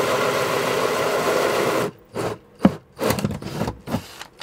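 Cordless drill driving screws into a plywood panel: one steady run of about two seconds, then several short bursts of the motor.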